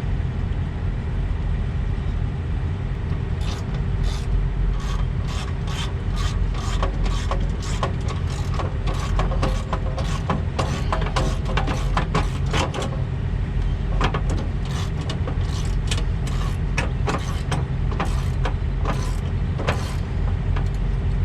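Irregular metallic clicking from a hand ratchet wrench working bolts, from about three seconds in to near the end, over a steady low diesel engine rumble.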